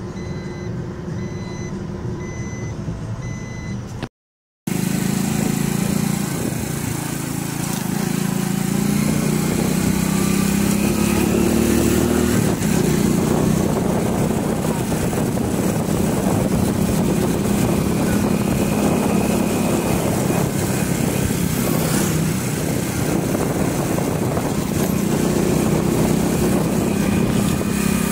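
Moving vehicle: engine and road noise, loud and steady, rising a little after the first few seconds. At the start there is a repeating electronic beep over the vehicle noise, then a brief cut to silence.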